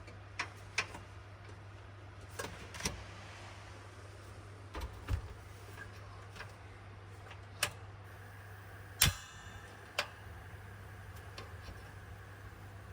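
A handful of short, sharp knocks and clicks at irregular intervals, the loudest about nine seconds in, over a steady low hum.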